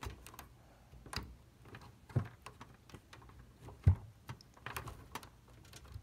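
Irregular clicks and knocks of hands handling cables and plastic and metal parts inside a desktop PC case, the loudest knock a little before four seconds in.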